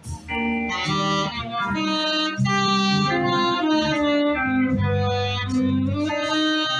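Live band music played through PA speakers by a saxophone-led party band, with guitar prominent over bass and drums.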